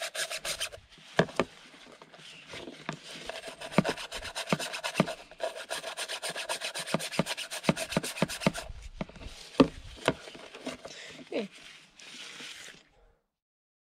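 Toothbrush scrubbing the gunked-up mesh of a Yanmar 186D tractor's hydraulic/transmission strainer in a tub of diesel: quick back-and-forth rasping strokes in runs, broken by short pauses and a few knocks, stopping near the end.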